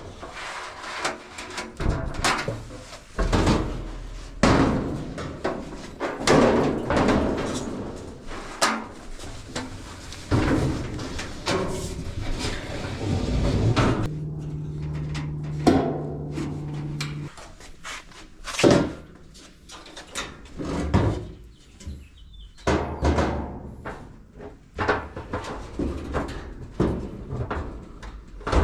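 Irregular clunks, bangs and scraping of a Whirlpool dryer's drum and sheet-metal panels being handled and fitted back together, with a short steady hum about halfway through.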